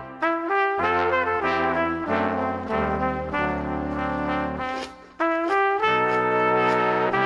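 Background music: a melody of held instrumental notes over a low bass part, breaking off briefly about five seconds in.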